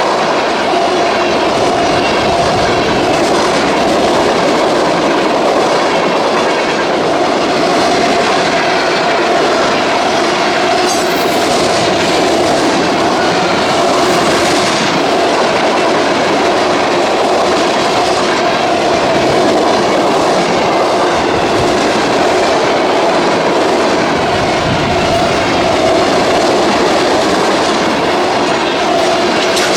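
Loud freight train cars rolling steadily past, wheels clacking over the rail joints.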